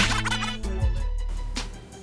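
Music with a beat, fading away near the end.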